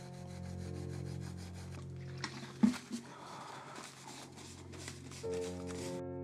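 Synthetic abrasive scour pad scrubbing a grimy wooden saw handle in quick, rhythmic rubbing strokes, over soft background music. A sharp knock comes a little past the middle, and the scrubbing stops near the end.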